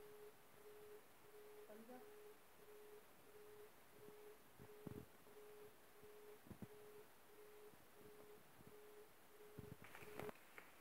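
A faint electronic beep at one steady pitch, repeating about twice a second and stopping abruptly near the end, with a few soft clicks or taps, most of them just before it stops.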